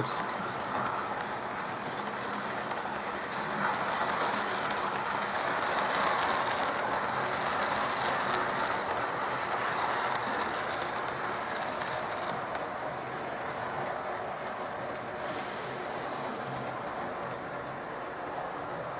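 Hornby 0-4-0 tank engine model running round the track hauling a long rake of coaches: a steady motor whirr and wheel noise on the rails, growing louder from about four seconds in and fading again after about ten seconds. A few faint clicks sound over it.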